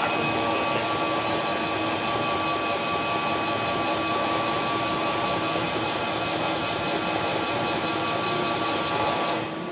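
Heavy workshop machinery running with a steady whir and a constant high whine, which falls away sharply near the end.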